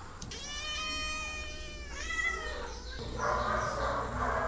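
Domestic cat meowing twice, a long drawn-out meow that falls in pitch at the end, then a shorter one. A rough noise follows about three seconds in.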